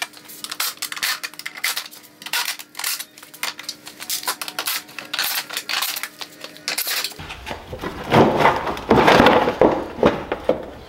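Cordless drill-driver backing Phillips screws out of a plastic body panel: many small irregular clicks and clatters over a faint steady hum. About seven seconds in comes louder rustling and scraping as the plastic front body panel is worked loose and lifted.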